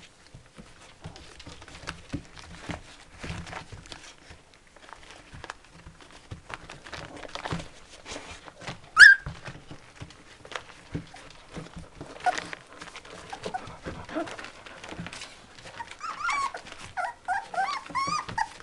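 Three-week-old puppies play-fighting: scuffling on bedding, one sharp high squeal about halfway through, then a run of short squeaky yips near the end.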